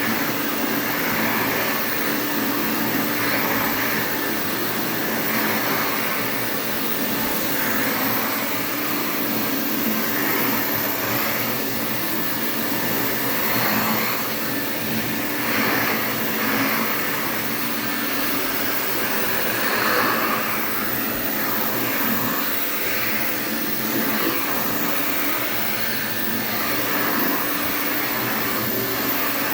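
Interstate Compact C6 vacuum cleaner running steadily while vacuuming. A continuous hum carries an air rush that swells and fades every couple of seconds.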